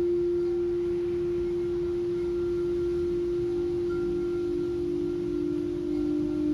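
Crystal singing bowl sounding one steady, nearly pure tone that rings on. It wavers slightly near the end.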